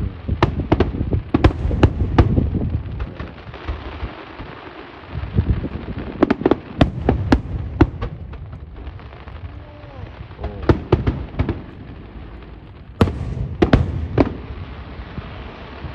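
Aerial fireworks bursting in four volleys of sharp bangs over a continuous low rumble of booms.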